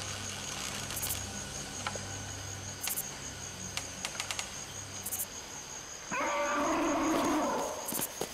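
Insects trilling steadily at a high pitch, with scattered light crunches of footsteps on dry leaves. About six seconds in, a louder, drawn-out call lasts for about a second and a half.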